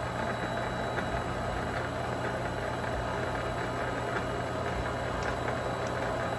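Vevor MX400 mini lathe running at a steady speed, its spindle and chuck spinning with a constant motor hum.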